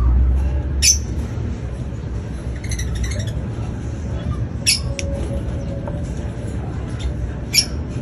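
Lovebirds giving short, sharp, high chirps every couple of seconds over a steady low rumble.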